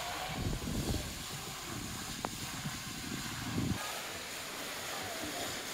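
Steady hiss of a large fountain jet splashing into its basin, with wind rumbling on the microphone that stops abruptly about four seconds in.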